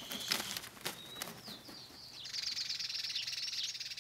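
Bird calls: a few short high chirps and a sharp click early on, then a rapid, buzzy, high-pitched chattering call from about halfway through.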